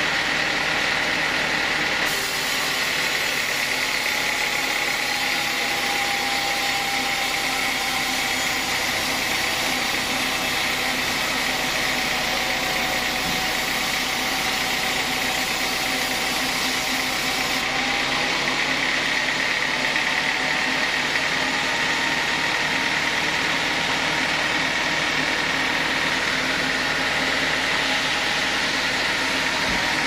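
Sawmill band saw cutting a teak log, a steady whine and hiss of the blade running through the wood. The hiss is brighter from about two seconds in until a little past halfway.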